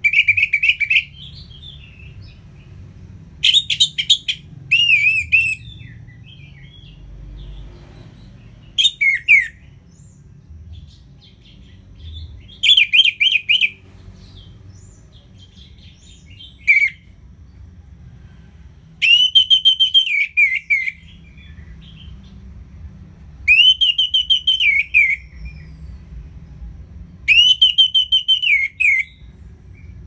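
Orange-headed thrush singing its full, open song: about nine loud phrases of quick whistled notes with short pauses between them, the later phrases longer and ending in a falling note.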